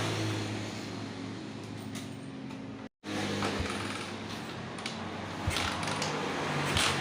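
Honda GL Max single-cylinder four-stroke motorcycle engine idling steadily after being jump-started from a borrowed battery, with an abrupt cut at about three seconds and a few sharp clicks later on.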